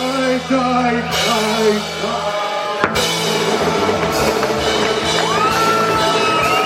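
Band music with a sung vocal over bass and drums; the sound changes abruptly about three seconds in.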